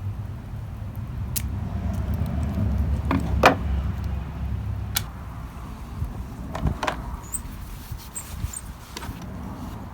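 Clicks and knocks from the plastic parts of a cordless chainsaw being handled, over a low rumble that fades after about five seconds. The loudest knock comes about three and a half seconds in.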